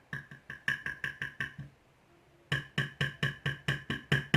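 Quick, evenly spaced metal taps, about five a second in two runs with a short gap between, each tap ringing briefly: small lock parts being tapped out while a lock is gutted.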